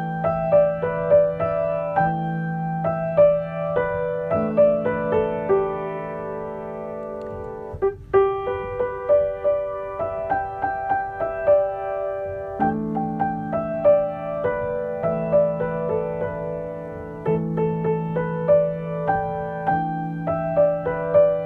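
Solo piano music: a gentle, improvised-sounding piece of held low chords under a melody of separate higher notes, with a brief break about eight seconds in.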